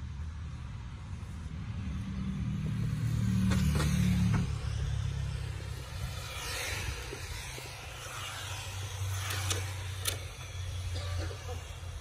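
Electric Tamiya TT01 radio-controlled touring cars racing past, their motor and gear whine rising and falling in pitch as they go by, loudest about six seconds in. A low rumble runs underneath, strongest about four seconds in, with a few sharp clicks near the end.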